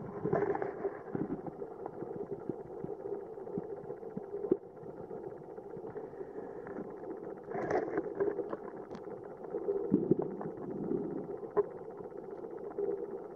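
Muffled underwater sound from a submerged camera: a steady low hum with scattered sharp clicks and knocks, and louder rough bursts about 8 and 10 seconds in.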